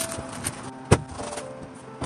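A knife crunching down through a crispy, flaky hand-grabbed pancake, with crackling at the start and one sharp knock of the blade on the cutting board about a second in. Background music plays throughout.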